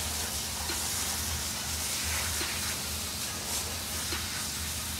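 High-pressure washer jet hissing steadily as it sprays across an excavator's steel tracks and side panels.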